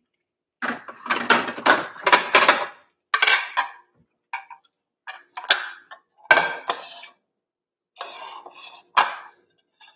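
Dishes and cookware clattering and clinking as they are handled. Near the end a plate is set down with a knock on a granite countertop.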